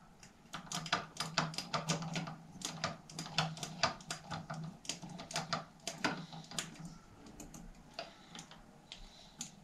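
Irregular light metallic clicking and ticking, about three or four clicks a second, as a small bicycle sprocket on a hub part clamped in a vise is worked by hand with a small tool; the clicks thin out near the end. A faint steady hum sits underneath.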